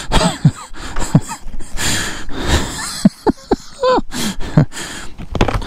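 A man's strained grunts, gasps and heavy breaths as he struggles to hold up a motorcycle that nearly topped over when its side stand dug into the ground, with a few sharp knocks among them.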